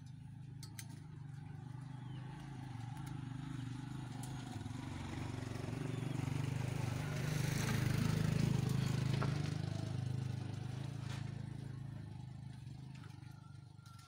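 A motor vehicle passing by, its engine hum and road noise swelling to a peak about eight seconds in and then fading away, with a few sharp clicks along the way.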